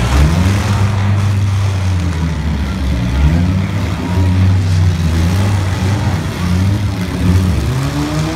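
Demolition derby mid-size stock car engines revving hard, their pitch rising and falling over and over as the cars accelerate and back off on the dirt arena.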